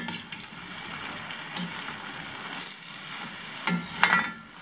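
Chopped snake gourd sizzling in a steel kadai as a metal spatula stirs the spice powders through it, scraping the pan a few times, with strokes at the start, about a second and a half in and twice near the end.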